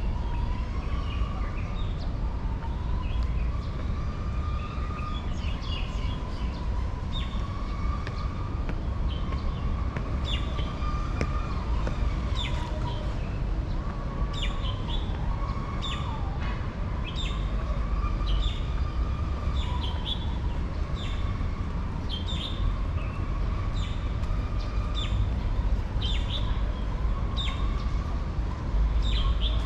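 Birds chirping over and over, short falling chirps about once a second. Beneath them runs a steady tone that wavers slowly up and down, with a constant low rumble.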